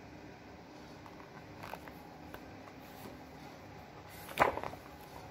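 A large hardback picture book being handled and a page turned, with faint taps and then one brief, sharp paper rustle about four seconds in.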